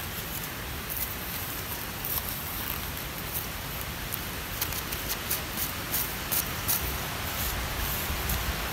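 Dry leaf litter crackling in scattered short ticks as a young macaque handles the leaves, thickest about halfway through, over a steady outdoor hiss and low rumble.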